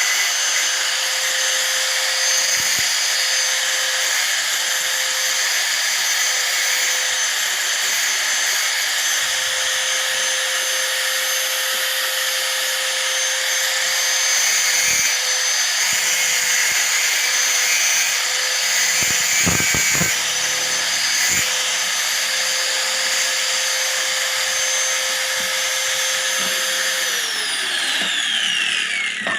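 Hand angle grinder running at a steady high speed, with a few knocks about two-thirds of the way through. Near the end it is switched off and its whine falls as the disc spins down.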